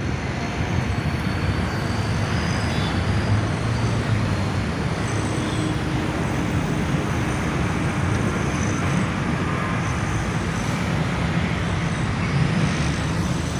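Steady noise of road traffic, an even hum with no single vehicle standing out.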